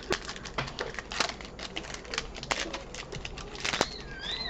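Pokémon trading cards handled and flipped through by hand: an irregular run of light clicks and flicks of card stock.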